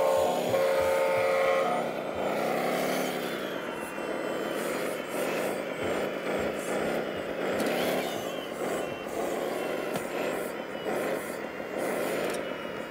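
Radio-controlled wheel loader's engine sound revving up and down several times as it manoeuvres, over a steady mechanical hum. A steady tone sounds briefly in the first two seconds.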